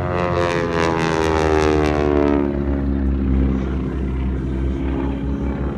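Display aircraft passing low overhead: a loud engine rush whose pitch falls steadily over the first three seconds as it goes by, then dying down to a low rumble.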